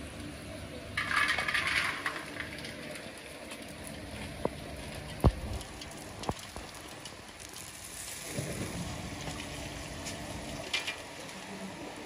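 Dried raisins pouring from a plastic sack into a metal pot, with a rush of rattling and sack rustle about a second in and a few sharp clicks as raisins hit the pot. Near the end, water from a garden hose runs onto the raisins.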